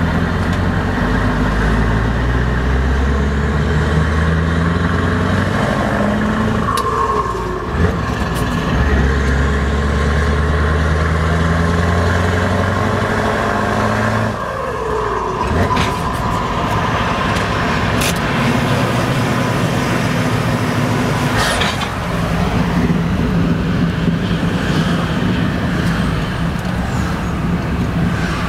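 Scania 164L's V8 engine with an open exhaust pipe, heard from inside the cab, pulling under load: the engine note climbs, breaks off at gear changes about six and fourteen seconds in, then runs steadier through the second half.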